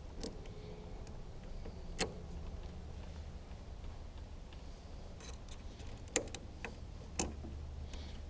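A few sharp, separate clicks and taps: one near the start, one about two seconds in, a cluster of lighter ones around five seconds, and two louder ones near six and seven seconds. A low steady hum runs underneath.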